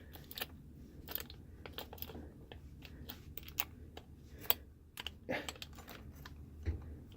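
Irregular clicks and light taps from a Wiser knob lock being worked apart by hand as the front end is forced out, with a couple of louder knocks about halfway through.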